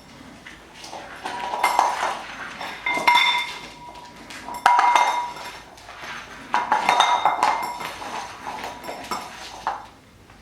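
A puppy playing with a bowl, knocking and sliding it so it clatters and rings on the floor in a series of hits every second or two.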